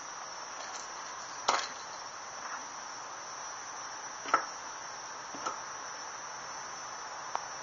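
Steady high-pitched insect chirring, like crickets, with four short light clicks and taps from small metal split rings being handled.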